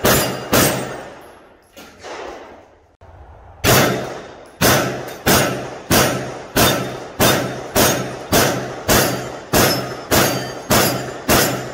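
Aero Precision EPC-9 9mm pistol-calibre carbine firing at steel targets, each shot followed by a short ring from the struck steel. Two quick shots open, a fainter knock comes about two seconds in, and then a steady string of about a dozen shots at roughly one and a half a second follows.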